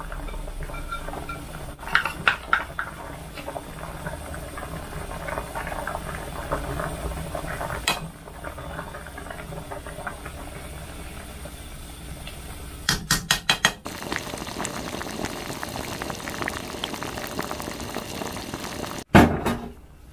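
Chicken noodle soup bubbling at a boil in a pot. Short quick runs of clinks come about two seconds in and about thirteen seconds in, and a louder knock comes near the end.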